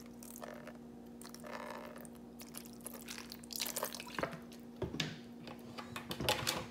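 Faint drips and small wet clicks from raw ribs and lime juice in a plastic bowl, more of them in the second half, over a steady low hum.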